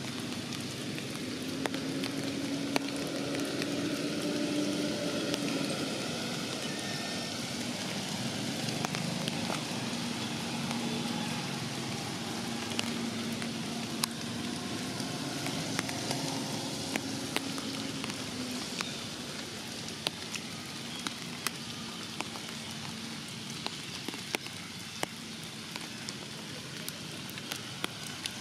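Steady rain falling on forest leaves, with sharp drips landing throughout. A faint low hum that wavers in pitch runs under it for the first two-thirds, then fades out.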